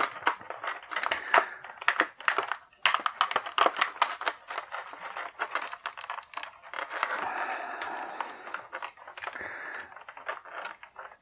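Clear plastic blister tray crackling and clicking as a small action figure is pried out of it by hand: a fast run of small clicks and snaps, with a longer stretch of crinkling about two-thirds of the way through.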